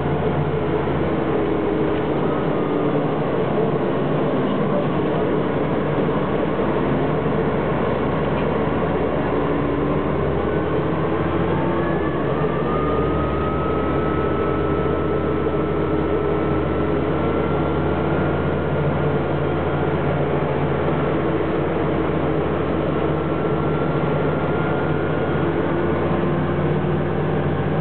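Inside the cabin of a SITA bus at speed, the engine and road noise make a loud, steady drone. A thin whine climbs a little about twelve seconds in.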